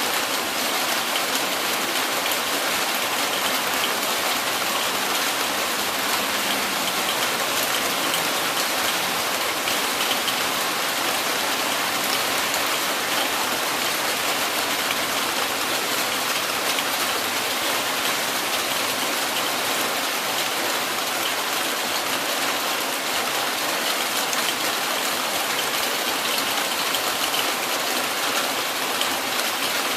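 Heavy rain falling steadily: a dense, even hiss of countless drops striking, with no thunder.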